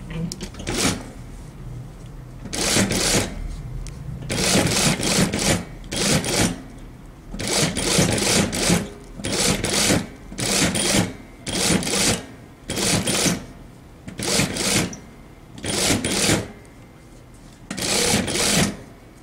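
Unicorn industrial sewing machine stitching a rolled hem with a hemmer foot, run in about a dozen short stop-start bursts as the fabric is eased around the curved hem.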